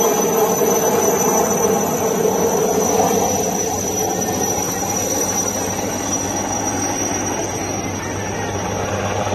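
A turbine helicopter of the Alouette III (HAL Chetak) type flying low overhead: steady rotor noise with a high engine whine, growing fainter after a few seconds as it moves away.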